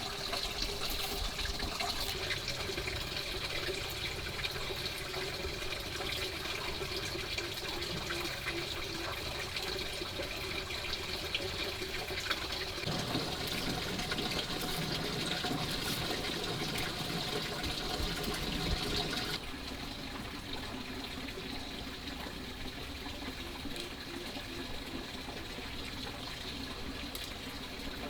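Water running and splashing steadily, its sound shifting about halfway through and dropping a little in level about two-thirds of the way in.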